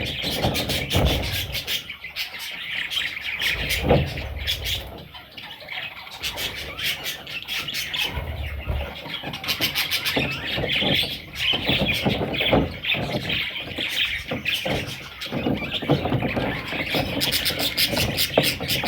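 Pet budgerigars chattering and chirping continuously, with a few dull low thumps mixed in.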